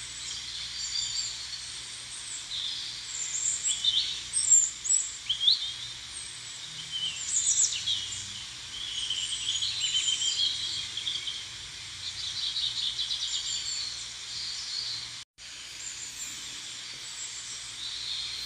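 A chorus of small birds chirping and twittering, with many short high calls and quick rising and falling whistles overlapping. The sound drops out for an instant about fifteen seconds in.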